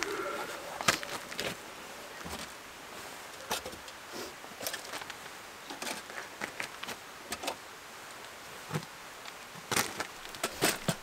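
Scattered clicks, clanks and knocks as metal oil lanterns are lifted off their hooks on a plank wall, with a denser run of knocks near the end at the wooden door.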